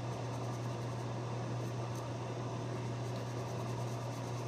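Steady low mechanical hum with an even hiss over it, like a fan running. The level stays flat with no distinct knocks or splashes.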